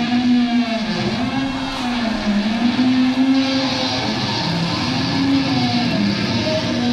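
Loud, distorted electric guitar feedback and amplifier noise, a continuous roar with pitches that waver and glide up and down.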